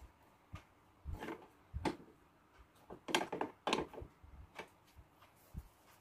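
Scattered light knocks and clicks of hands handling plastic parts and wiring, irregular and short, loudest a little past the middle.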